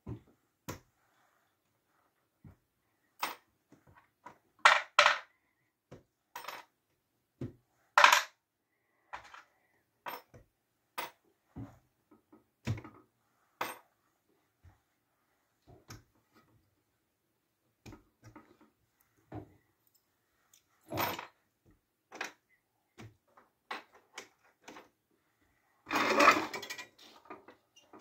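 Sharp clicks and knocks of hands and small handling on a stained glass panel lying on a wooden workbench, irregular and of varying loudness, with a longer scraping, rustling burst near the end.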